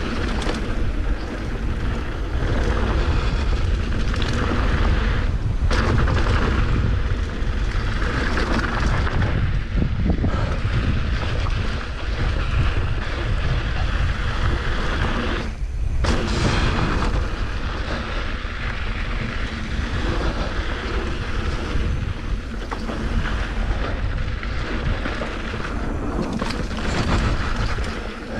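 Mountain bike descending a rocky dirt trail at speed: wind buffeting the microphone over the rumble and crunch of knobby tyres on dirt and loose rock. The noise drops out briefly twice, about a third of the way in and past the middle.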